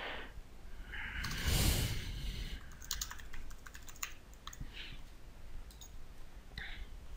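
Typing on a computer keyboard: scattered keystrokes as a line of text is typed. A short rush of noise comes about one and a half seconds in.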